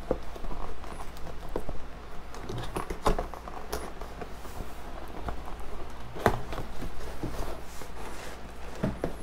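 Cardboard kit boxes being handled: scattered light knocks and scrapes as the boxes are lifted and shifted, the sharpest knock about six seconds in, over a steady low hum.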